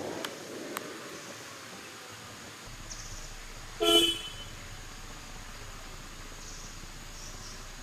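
A single short vehicle horn toot about four seconds in, one steady note, over a faint steady background hiss. Two light clicks sound near the start.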